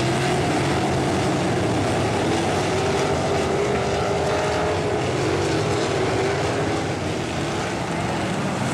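Sprint car V8 engines racing at speed, a steady loud drone whose pitch rises and falls as the cars throttle through the turns and down the straights.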